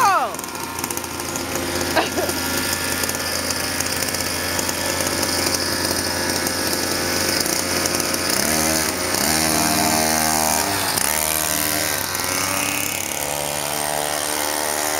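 Small gas-engine scooters running with a buzzing engine note, revved up and down several times from about eight seconds in as they pull away.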